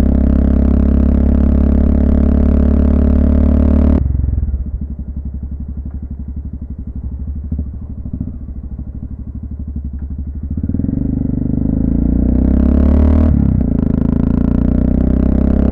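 Honda FMX650's single-cylinder engine on the move at steady throttle. About four seconds in it drops to a quieter, pulsing note as the throttle closes for a bend. From about ten seconds in it builds back up as the bike accelerates away, then runs steadily again.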